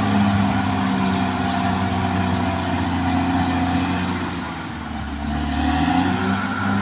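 Caterpillar D6R XL bulldozer's diesel engine running steadily while working. About four and a half seconds in, its pitch and loudness drop briefly, then pick back up near the end.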